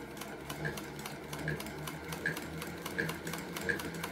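Singer 201K Mark II sewing machine running at a steady, unhurried pace while it stitches a test seam, its needle mechanism clicking evenly about four or five times a second over the low hum of the motor.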